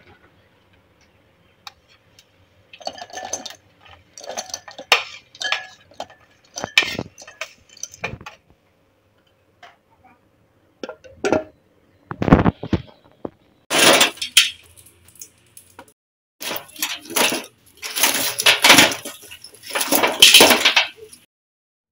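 Separate clinks and knocks of chocolate pieces and the plastic food chopper's blade and bowl being handled, then, from about two-thirds of the way through, longer stretches of crackling from the foil wrappers of umbrella chocolate cones.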